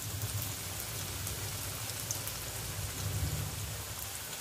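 Slices of alu vadi (colocasia-leaf rolls) deep-frying in hot oil in a kadhai: a steady sizzle and bubbling with scattered crackles, over a low rumble.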